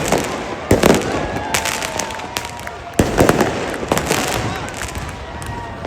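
Fireworks display going off, with two big bangs about a second in and again about three seconds in, and a lot of smaller popping and crackling between them.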